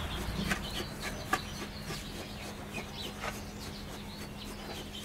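Gritty pumice substrate being worked into a large bonsai pot with a stick and gloved hands: a few scattered soft clicks and crunches of grit, the sharpest about a second in. Birds call in the background.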